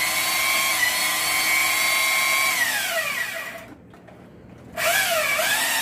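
Makita cordless drill running: its motor whine holds steady for about two and a half seconds, then winds down and stops. After about a second's pause it starts again, its pitch rising and falling.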